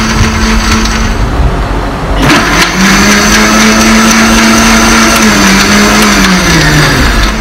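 Electric juicer-blender motor running, whirring through ice, mint leaves and 7 Up. The sound turns harsher about two seconds in, and the motor's pitch sags lower over the last two seconds.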